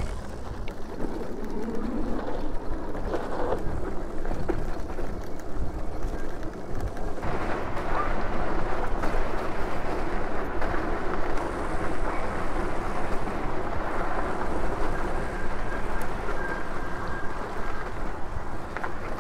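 Riding noise of a Super73 electric bike rolling down a dirt trail: wind buffeting the microphone and knobby tyres on dirt and gravel. It gets louder from about seven seconds in as the bike picks up speed.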